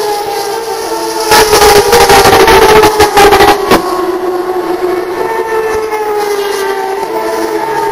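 Turismo Carretera race cars' engines running at high revs, a steady high-pitched drone that sags slowly in pitch. About a second and a half in, it turns much louder and rougher for a couple of seconds as cars pass close.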